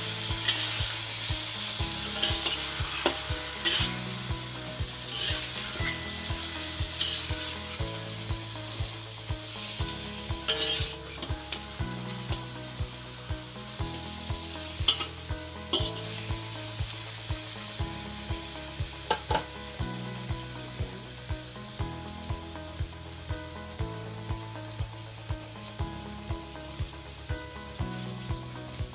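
Pig trotters sizzling in hot oil in a wok while a spatula turns them, with a few sharp scrapes and knocks against the pan. The sizzle is loud at first and dies down steadily as the pan settles.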